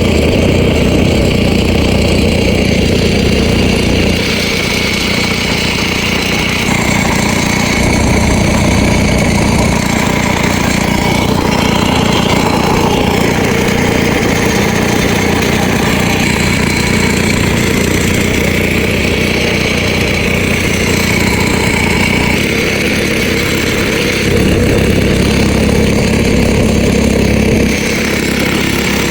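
A small engine running steadily, its loudness stepping up and down a few times.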